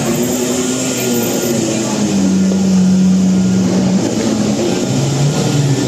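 Lamborghini V12 engine holding a steady note, dropping to a lower pitch for a moment near the end.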